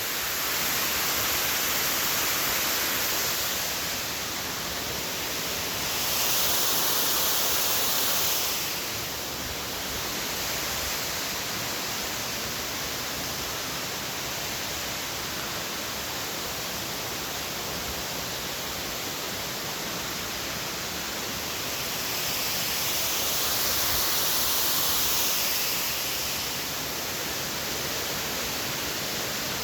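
Waterfall rushing in a steady, even roar of falling water, growing louder and brighter twice: about six seconds in and again past the twenty-second mark.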